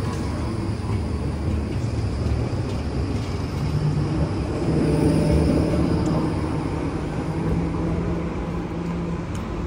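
Electric street trams running on the rails close by: a steady low motor hum over a rolling rumble, swelling about halfway through.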